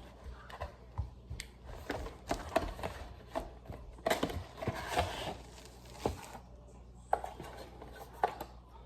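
Packaging and a plastic device being handled: irregular rustling with sharp clicks and taps, busiest in two stretches near the start and the middle.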